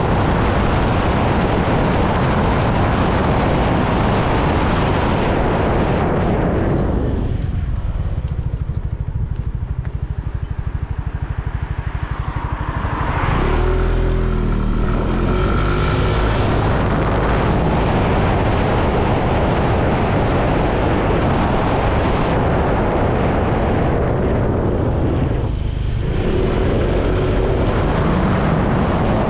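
Motorbike riding at road speed: wind rushing over the microphone with the engine running underneath. About a quarter of the way in the wind noise dies away as the bike slows, leaving the engine's low pulse, then builds again as it pulls away. There is a brief dip near the end.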